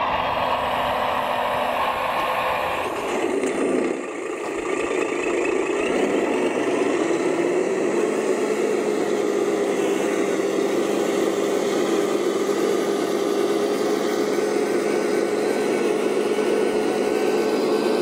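Motor of a radio-controlled construction model running with a steady whine. The pitch dips about three seconds in, then climbs back and holds level from about eight seconds on.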